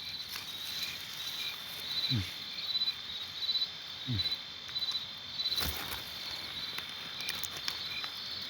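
Field insects buzzing steadily, with a regular pulsed chirping over the drone. Two short low sounds fall in pitch about two and four seconds in.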